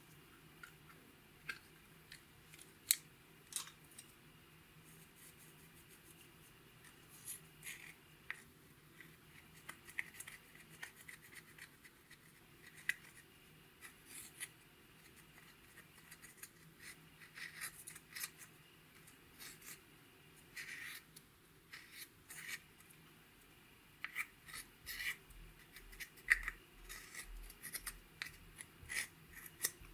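Pressed eyeshadow being scraped and crumbled out of a compact's pans with a pointed plastic stick: faint, irregular short scratching strokes. A sharp click about three seconds in.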